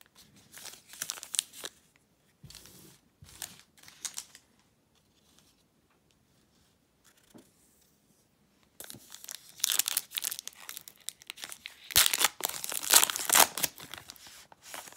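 Foil trading-card pack crinkling in the hands and being ripped open, with a long loud stretch of crinkling and tearing in the second half after a quiet pause in the middle.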